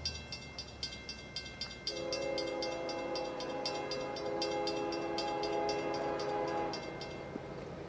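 Air horn of an approaching CSX freight train's lead locomotive, a GE ES40DC, sounding one long chord blast from about two seconds in until near the end. Under it runs a fast, even ringing of about five strokes a second that stops with the horn.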